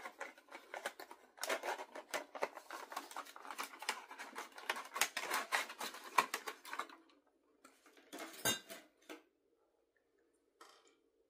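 Hands working an ornament out of its packaging: a dense run of small crackles and clicks for about seven seconds, then a few scattered clicks and one louder knock.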